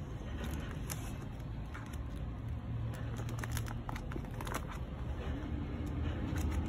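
Thin clear plastic sleeve crinkling and crackling in small, irregular crackles as it is handled and pulled off a vinyl picture disc, over a steady low rumble.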